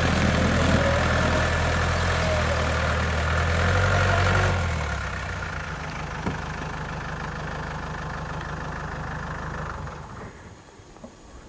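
Land Rover 4x4 engine idling steadily. About four and a half seconds in it drops abruptly to a quieter steady hum, and near the end only faint wind noise remains.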